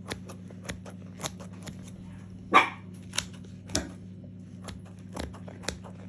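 A metal blade cutting through a baked, cornmeal-crusted zucchini flatbread in its pan: a string of sharp clicks and crunches, about two a second, with one louder scrape about two and a half seconds in.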